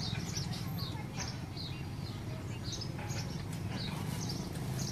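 A small bird chirping repeatedly: short, high, slightly falling notes, often in pairs, coming every half second to second, over a steady low rumble.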